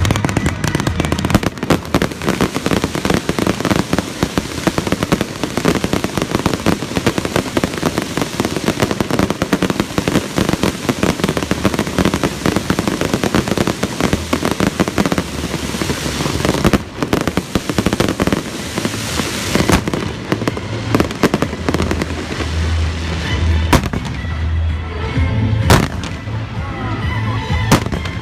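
Fireworks show: a dense, rapid barrage of bursts and crackling for most of the stretch, thinning to fewer, separate loud bangs toward the end.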